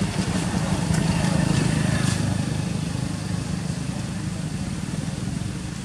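Low, steady hum of a motor engine running nearby, loudest between one and two seconds in and then easing off slowly.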